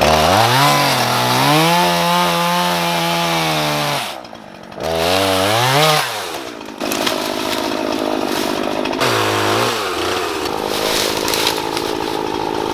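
Two-stroke chainsaw revving, its pitch climbing and falling twice with a short dip between, then running steadily under load as it cuts through brush.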